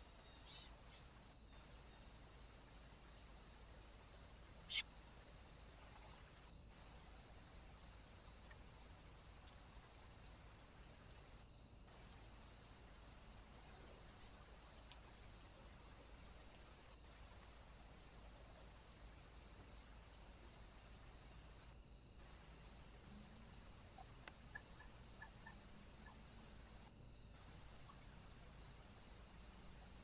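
Faint, steady high-pitched chirring of crickets, with a regular chirp repeating a little more than once a second. A single sharp click about five seconds in is the loudest sound.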